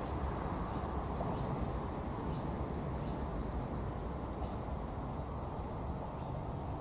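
Low, steady rumble of a ČD class 814 Regionova diesel railcar receding along the line, slowly fading.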